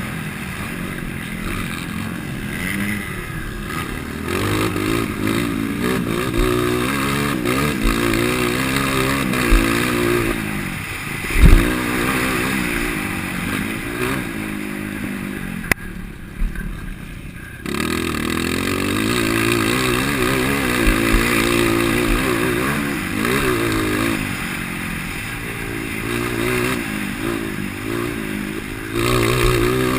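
IMS 230 motocross bike, stock engine with a Dore exhaust header and tip, revving up and down through the gears as it is ridden hard. There is a heavy thud about eleven seconds in, and the engine drops off briefly past halfway before pulling hard again.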